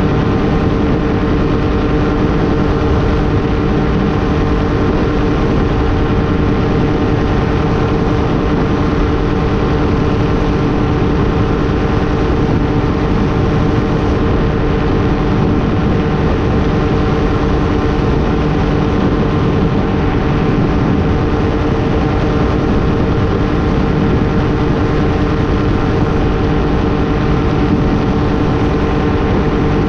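Light aircraft's engine and propeller running steadily in level flight: a constant drone with a pair of steady tones, mixed with the rush of airflow over the tail-mounted camera.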